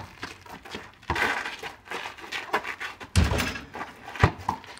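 Basketball bouncing on a packed dirt and gravel surface: a few dull thuds, the loudest about three seconds in.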